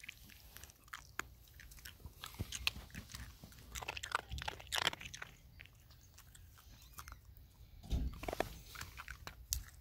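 A miniature poodle crunching and chewing ice cubes: faint, crisp crunches and clicks in irregular clusters.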